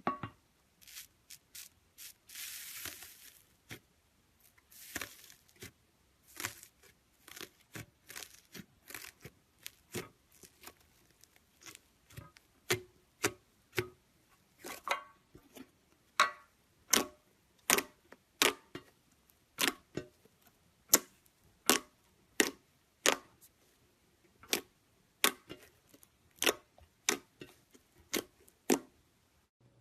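Slime being squeezed and worked by hand, giving sharp wet pops and clicks. There is a longer crackly rustle near the start, and in the second half the pops settle into a steady run of about one or two a second.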